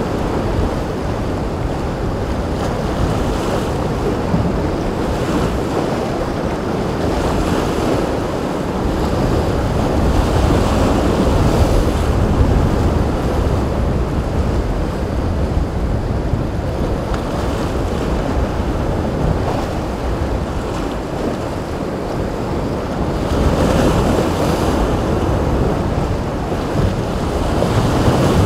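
Rough surf breaking and sloshing with strong wind buffeting the microphone, swelling louder now and then.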